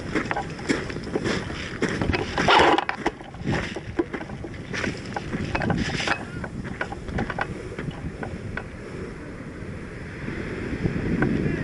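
Wind buffeting the microphone, with irregular clicks, knocks and rustling bursts, the loudest about two and a half seconds in.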